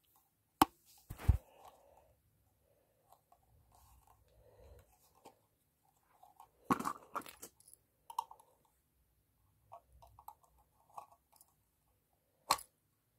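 Handling noise of hard plastic fire-alarm parts (beacon and sounder base): scattered sharp clicks and knocks, a heavier knock about a second in, a quick cluster of clicks about seven seconds in, and another click near the end.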